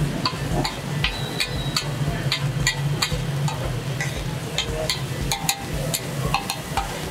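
Metal spatula scraping and clacking on a large flat iron griddle (tawa) as keema is stirred and fried, about three clicks a second, over a steady low hum.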